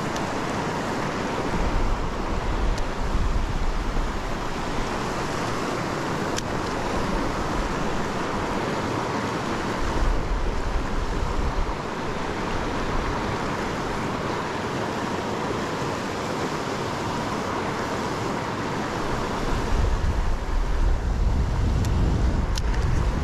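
River water rushing steadily over a shallow riffle, with wind buffeting the microphone in low rumbling gusts, strongest over the last few seconds.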